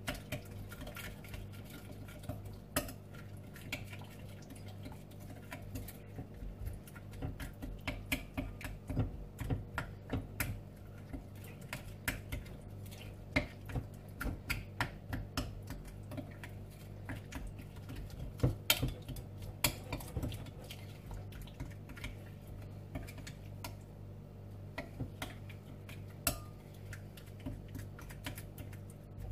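A spoon stirring a thick yogurt-and-spice marinade in a glass mixing bowl, clinking and scraping against the glass in quick irregular clicks.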